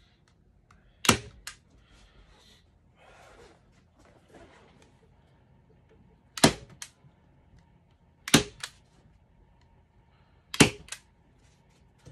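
Hand staple gun firing staples through a beaver pelt into a plywood stretching board: four sharp snaps, each followed by a lighter click or two, with faint rustling of the pelt between shots.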